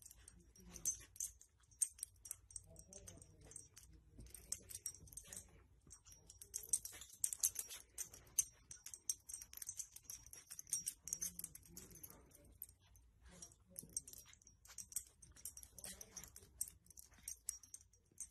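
Soft rustling of a fleece blanket and many small scattered clicks as a puppy noses and tugs it, with faint dog sounds.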